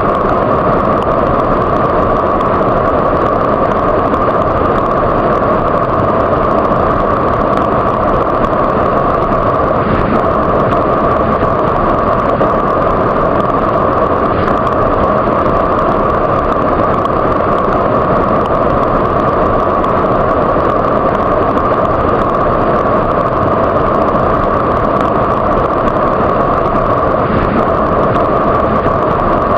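Waterfall: falling water rushing in a steady, loud, unbroken wash.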